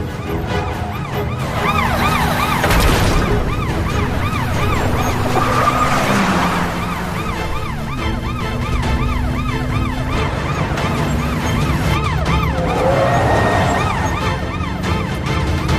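Police sirens in a fast yelp, the pitch sweeping up and down about two or three times a second, over the running of vehicle engines.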